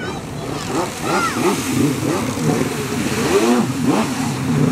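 Stand-up jet ski engine revving up and down over and over as the throttle is worked, with the hiss of spray from the hull.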